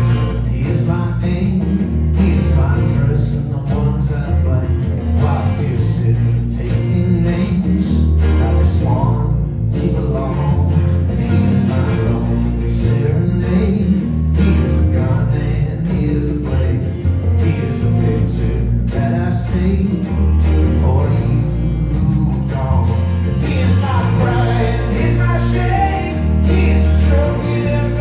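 Live folk-rock band playing a song, with singing over guitars and a heavy bass.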